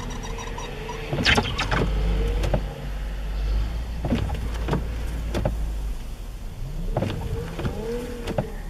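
Strong wind rumbling on the microphone, with scattered sharp knocks and a vehicle's whine that rises and falls in pitch near the end. The whine fits tyres spinning on ice.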